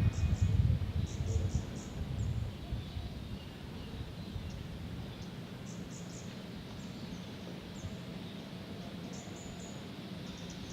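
City park ambience: short, high bird chirps scattered throughout over a steady low hum, with a low rumble that fades away over the first few seconds.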